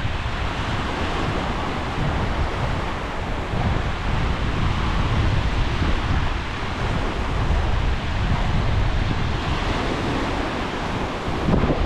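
Sea waves washing in, with gusty wind rumbling on the microphone.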